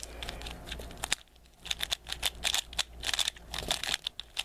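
Plastic clicking and clacking of a freshly lubed Valk 3 3x3 speedcube as its layers are turned by hand: a quick, irregular run of sharp clicks, with a short lull a little after a second in.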